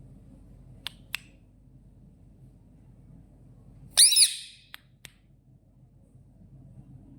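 A parrot gives one loud, shrill squawk about four seconds in, lasting about half a second. A couple of sharp clicks come before and after it.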